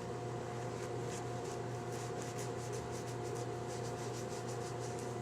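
Steady low room hum with faint light ticks scattered through it.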